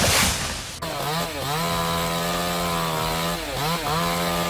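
A loud crackling rush that cuts off under a second in, then a two-stroke chainsaw revving up to full throttle. The saw holds a steady high pitch, then is let off and opened up again twice near the end.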